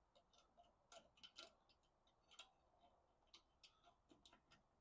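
Faint, irregular light clicks and ticks, a few a second, against near silence.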